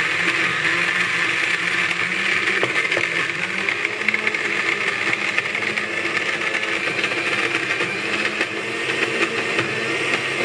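Countertop electric blender running steadily, grinding raw chicken chunks with ice cubes into a paste. The motor's hum rises slightly about four seconds in.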